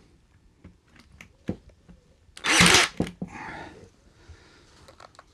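Brad nailer firing once, a loud sharp burst about halfway through as it drives a brad nail into birch plywood, with a smaller knock just after. Light knocks of the tool and board being handled come before it.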